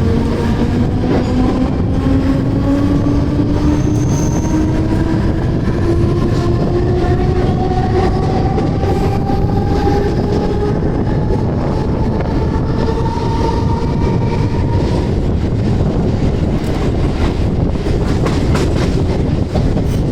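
Mumbai local electric multiple-unit train accelerating: the traction motors' whine climbs steadily in pitch for about fifteen seconds, then fades into the steady rumble and clatter of the wheels on the rails.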